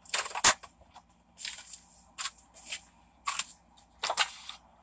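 A series of sharp, irregular clicks and rustles, about eight in all, the loudest about half a second in.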